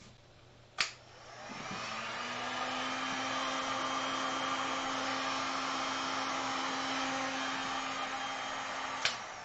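Handheld electric heat gun clicked on, its fan spinning up over about a second and then running steadily with a low steady tone. It is clicked off near the end and winds down.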